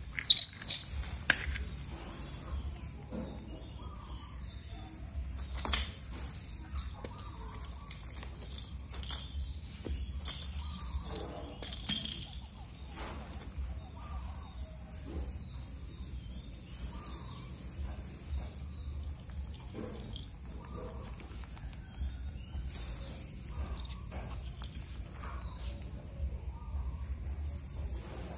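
A steady high insect trill that goes on in long stretches with short breaks, over scattered faint clicks and a few short sharp sounds, the loudest about a second in.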